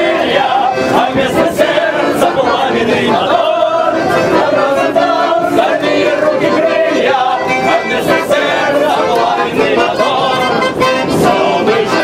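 A group of voices singing a lively song together to acoustic guitar accompaniment, loud and unbroken throughout.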